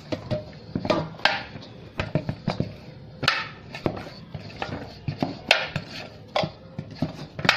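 Dough for lauki (bottle-gourd) paratha being mixed and kneaded by hand in a bowl: irregular soft squelches with short knocks against the bowl.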